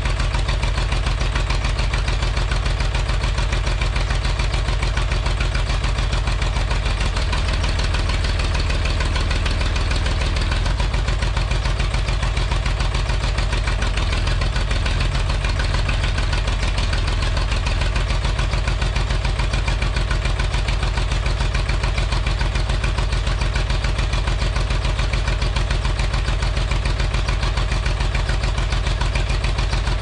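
Old Massey Ferguson backhoe's engine running steadily at an even idle, shortly after a cold start.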